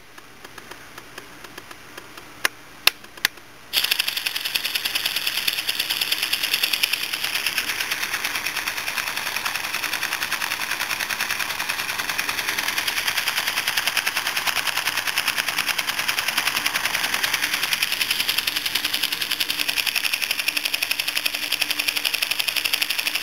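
Homemade solenoid engine, built from a slim CD-ROM drive's solenoid and a flywheel, running. A few single clicks, then about four seconds in it settles into rapid, steady clicking as the solenoid fires each time the flywheel's contact touches the switch wire.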